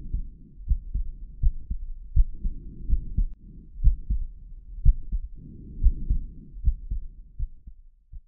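Sound-designed heartbeat: low thumps about one a second over a low rumbling wash that swells and fades twice, stopping abruptly near the end.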